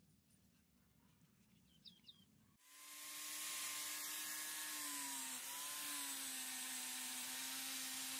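Faint low sound with two short chirps, then about two and a half seconds in an electric angle grinder cuts in suddenly and runs at a steady high whine, its pitch dipping briefly near the middle as it takes load.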